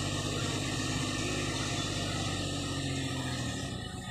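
Mini pickup truck's engine running at low revs as the truck creeps forward, a steady low drone that eases slightly near the end.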